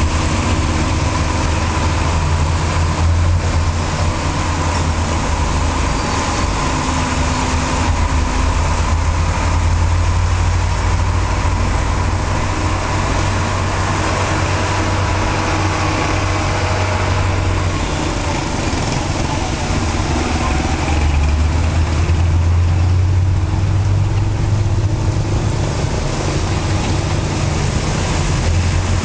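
Road traffic on a rain-soaked street: vehicle and motorbike engines idling and running close by, with a low hum that swells and eases, under a steady hiss of tyres on wet tarmac.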